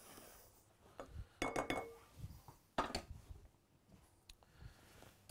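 Kitchen clatter: a few separate clinks and knocks of metal utensils and a frying pan being handled.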